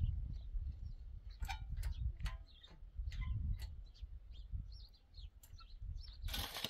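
Small birds chirping in many short, quick calls over a low, uneven rumble. There are a few sharp clicks, and a short burst of hiss comes near the end.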